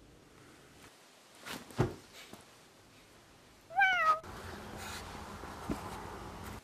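A few soft knocks, then one short cat meow about four seconds in, its pitch bending down. After it a steady low hum and hiss.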